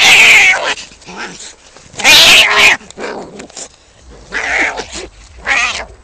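Cat yowling in wavering calls: two long, loud ones, at the start and about two seconds in, then two shorter, quieter ones near the end.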